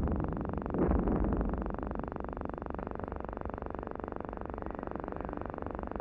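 Steady low rumbling noise on a muffled, narrow-band old film soundtrack, swelling louder twice in the first second and a half, then holding even.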